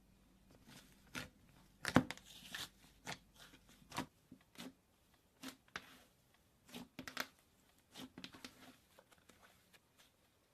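Slime being squeezed and pressed by hand, giving irregular clicking pops and crackles, the loudest about two seconds in.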